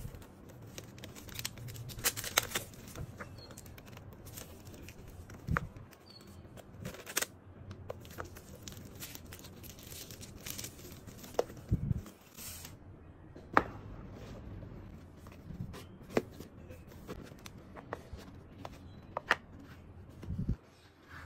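Plastic shrink-wrap being torn and peeled off a phone box, crinkling and crackling, with short clicks of handling. A few dull knocks of the cardboard box against the tabletop.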